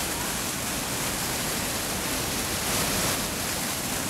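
Steady rush of fast-flowing water, a close, even hiss with no let-up.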